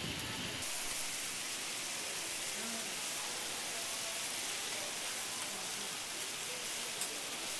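Tteokgalbi patties sizzling in oil on a flat steel griddle: a steady hiss, with a single sharp click near the end.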